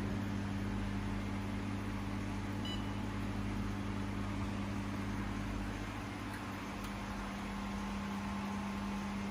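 A powered-on 1000 W fiber laser cleaning machine hums steadily with fan noise. One short high beep sounds about two and a half seconds in, as its touchscreen is tapped.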